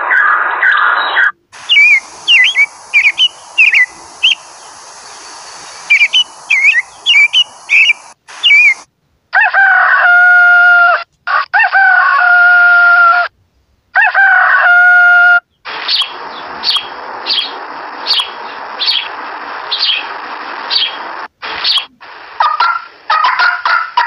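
A series of bird recordings played one after another. First a quail gives short chirped calls. Then a rooster crows three times, each crow a long held call. Near the end a turkey starts to call.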